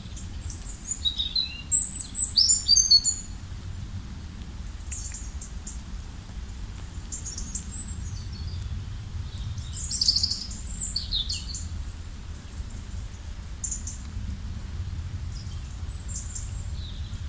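Small birds chirping and trilling in short, high phrases, loudest in a flurry about two seconds in and again about ten seconds in, over a steady low rumble.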